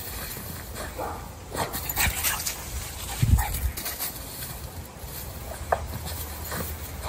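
Boston terrier digging in dry dirt and leaf litter: repeated short scratching and rustling strokes, with one heavier thump about halfway through and a brief whimper near the end.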